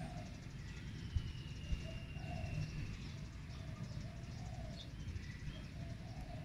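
Wild birds calling: a short low note repeated every half-second or so, a long slowly falling whistle about a second in, and scattered high chirps, over a steady low rumble.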